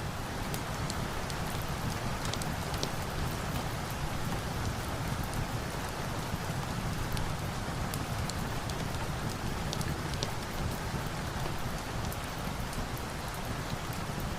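Steady rain with scattered faint, sharp ticks and a low, even rumble underneath.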